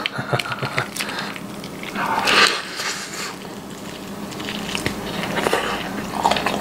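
Biting into a whole roasted pork knuckle with crisp crackling skin: crunching, tearing the meat off with the teeth and chewing. The loudest crunch comes a little over two seconds in.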